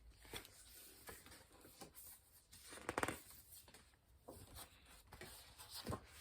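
Faint rustling and handling of a picture book's paper pages, with scattered light taps and one louder, longer rustle about three seconds in, as a page is turned.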